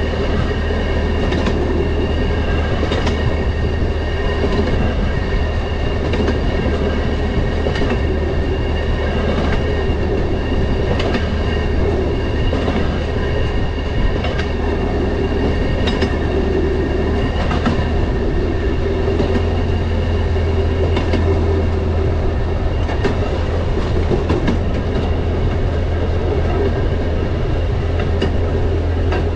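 Rail motorcar (track speeder) running along the track: a steady engine and running-gear drone with a few high whining tones, and the wheels clicking over rail joints every second or two.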